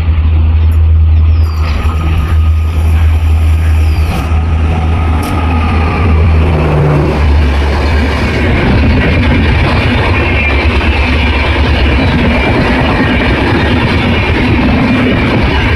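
Shatabdi Express passenger train, hauled by a WAP-5 electric locomotive, running past at speed: a loud, steady rush of wheels on rails with a heavy low rumble, growing brighter and hissier about halfway through.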